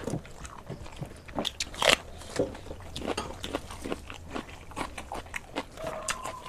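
Close-up eating sounds of people eating with their hands: chewing and crunching of fried snacks over wet rice. A scatter of short, crisp clicks and smacks runs irregularly, the loudest about two seconds in.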